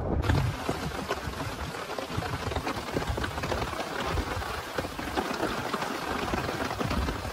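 Steady rain falling, a dense patter of drops, cutting in abruptly just after the start.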